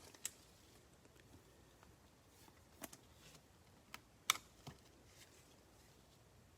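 Faint scattered clicks and taps of baseball trading cards being handled and set down, with the sharpest tap a little past four seconds.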